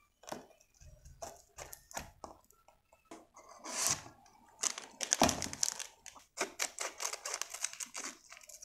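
A cardboard dessert-mix box being cut and torn open with a knife, giving scattered sharp clicks and tearing. In the second half its foil inner packet crinkles and crackles densely as it is pulled out and opened.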